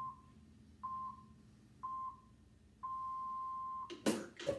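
Digital interval timer counting down into a work period: three short beeps about a second apart, then one long beep. Right after it, a sharp slap as a hand strikes the top of a cardboard paper towel tube.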